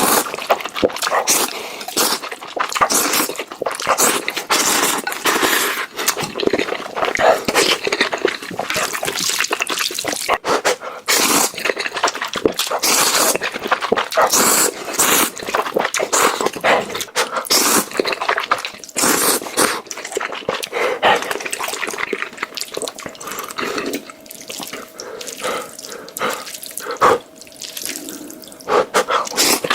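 Close-miked eating sounds of noodles: wet slurping, smacking and chewing in quick, irregular bursts.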